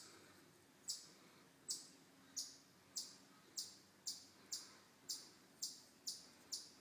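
Faint, high-pitched chirps repeating steadily, about eleven in all. They come a little faster as they go, from just under a second apart to about half a second.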